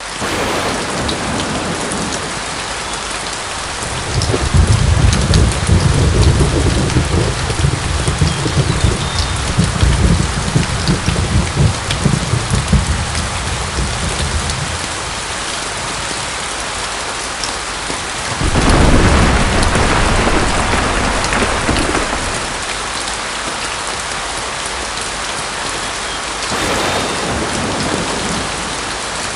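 Steady rain with rolling thunder: a long low rumble begins about four seconds in and lasts some ten seconds, a second rumble starts suddenly a little past halfway and dies away after a few seconds, and a fainter third one comes near the end.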